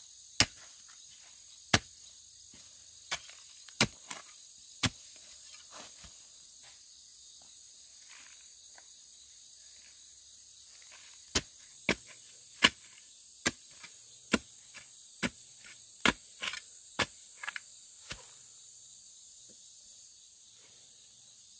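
A steady chorus of insects, possibly crickets, with sharp knocks or clicks that come irregularly, about one a second, stop for several seconds in the middle and then come more quickly for a while; the knocks are the loudest sound.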